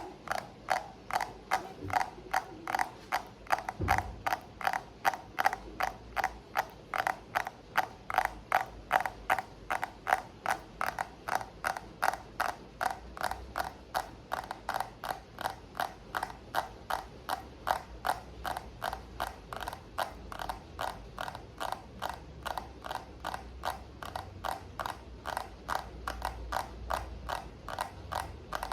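Hand tapping on an object in an even, steady rhythm of about three taps a second. Each tap is short and bright.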